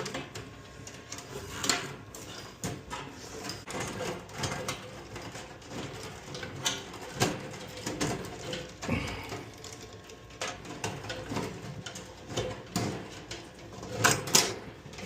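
Irregular small clicks, taps and rustles of hand work on fire alarm panel wiring, as output wires are disconnected from their terminals and pulled out. A few sharper clicks stand out.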